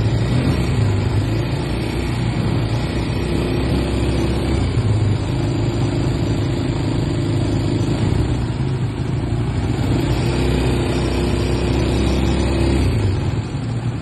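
ATV engine running at riding speed on a dirt track, a steady drone whose note drops back and picks up again a couple of times, over the rushing noise of wind and tyres.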